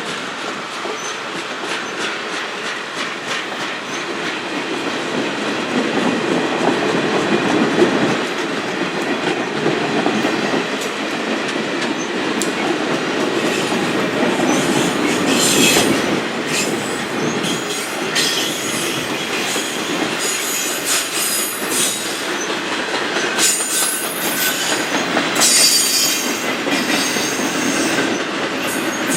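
A train rolling past, its wheels clicking over the rail joints in a steady run, with bursts of high-pitched wheel squeal about halfway through and again near the end.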